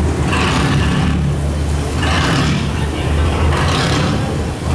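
A boat engine running with a steady low drone, with a rushing hiss that swells and fades three times over it.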